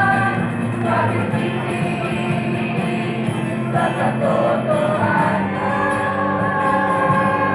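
A jingle performed as music with group singing, with held, sustained chords.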